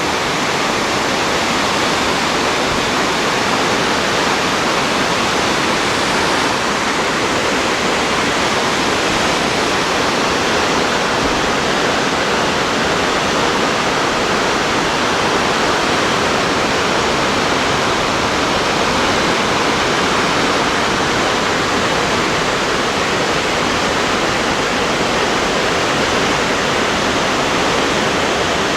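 Waterfall rushing: a loud, steady roar of falling water that holds even throughout.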